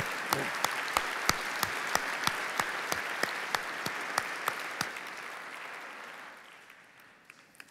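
Audience applauding, with one person's claps close to the microphone standing out at about three a second. The claps stop about five seconds in, and the applause dies away over the last few seconds.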